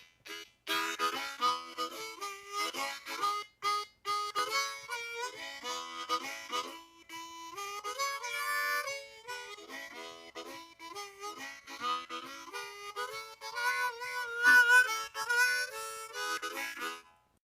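Intro music played on harmonica: a tune moving note to note with chords, which stops suddenly about a second before the end.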